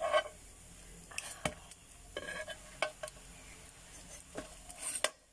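Slotted metal spatula scraping and clicking against a non-stick frying pan while egg-soaked bread fries, with a light sizzle underneath. A few sharp clicks stand out, around a second and a half in, near three seconds, and just before the end.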